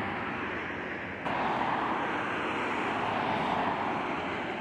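Jet aircraft engines making a steady rushing noise, which jumps up suddenly in loudness about a second in.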